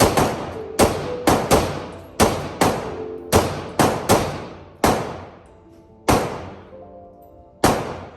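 Gunshots fired one after another at uneven spacing, about thirteen in all, some in quick succession, each with a ringing tail. Background music plays underneath.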